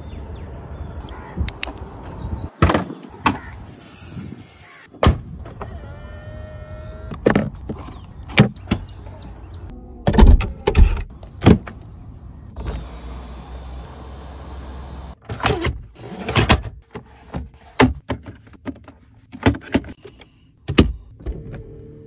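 Doors and electric fittings of an Audi limousine: a string of sharp clicks and thuds from handles, latches and doors shutting. Electric motors whir about six seconds in, again from about thirteen to fifteen seconds in, and once more near the end.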